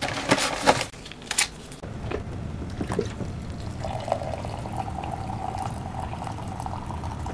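A few handling clicks and rustles as a tea box is taken from the shelf. About two seconds in, a steady stream of water starts pouring into a container, and a couple of seconds later a steady filling tone comes in with it.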